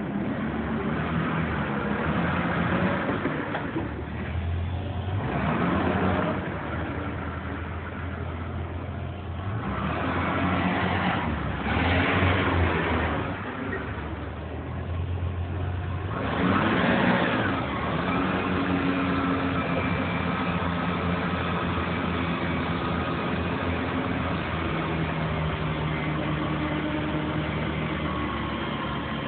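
Toyota 7FGCU45 forklift engine running, revving up in surges of a second or two several times, then settling to a steady idle with a faint whine.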